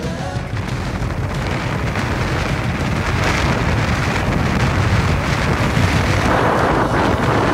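Heavy wind rumbling on the microphone over the rush of water and spray from a boat running at speed alongside a jet ski. It is a steady, noisy rumble with no clear engine note.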